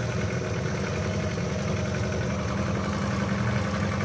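Small motorboat's engine running steadily, with water rushing and splashing alongside the hull.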